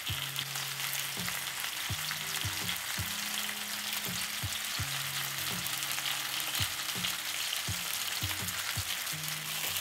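Flour-dredged beef shanks searing in almost-smoking vegetable oil in a stainless steel sauté pan: a steady sizzle. Low held notes that change every second or so run underneath.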